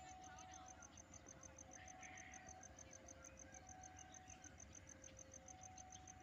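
Faint and distant: a railway level-crossing warning alarm alternating between a higher and a lower note about once a second, over an insect's fast, even high chirping at about eight pulses a second.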